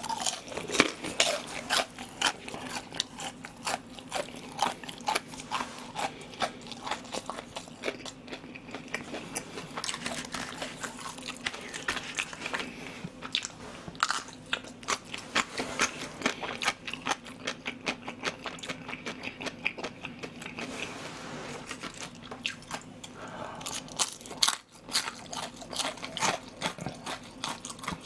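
Crunching and chewing of crispy deep-fried pork tangsuyuk in soy sauce, with many sharp, irregular crunches as each mouthful is bitten and chewed.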